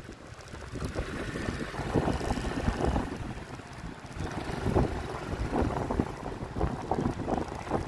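Wind buffeting a phone microphone while riding a motor scooter: an uneven, gusty rumble that swells and fades.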